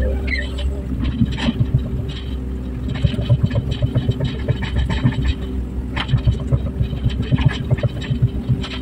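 Hydraulic excavator's diesel engine running steadily, with irregular metallic clanks and knocks from the machine as it works earth.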